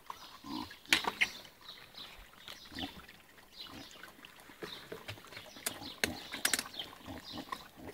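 Puppies grunting and snuffling over food, amid rustling of a plastic food bag and knocks of a plastic container being handled. Sharp clicks stand out about a second in and again around six seconds in.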